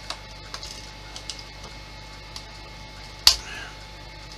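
Light clicks and taps of small model parts and tools being handled, with one sharp, much louder click a little over three seconds in that rings briefly, over a steady low hum.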